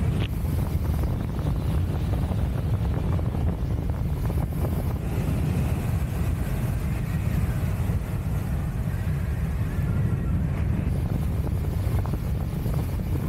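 Airflow buffeting the camera microphone during a fast speedflying glide: a loud, steady low wind rumble.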